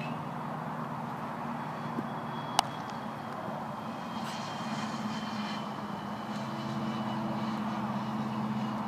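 Steady low engine drone that grows a little louder past the middle, with a sharp smack of a baseball landing in a leather glove about two and a half seconds in.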